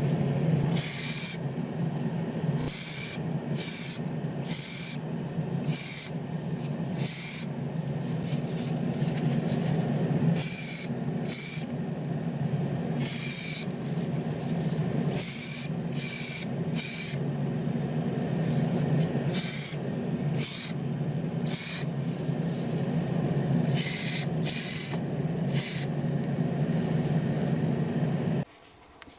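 A small air compressor running steadily, with many short bursts of spraying air as a trigger is pulled and released. Everything cuts off suddenly near the end.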